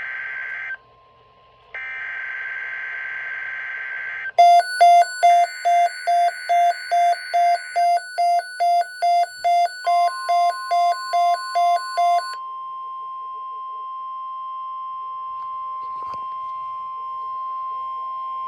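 NOAA Weather Radio emergency alert opening: the harsh, buzzing SAME digital header bursts, with a short break about a second in. From about four seconds in, a weather radio receiver's own alarm beeps about two and a half times a second for some eight seconds. From about ten seconds in, the steady single-pitch 1050 Hz warning alarm tone holds to the end, signalling that a severe thunderstorm watch bulletin follows.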